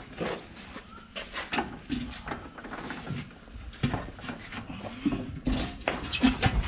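Irregular knocks, clicks and scrapes of hand work on a tractor tire and wheel, with no steady machine running.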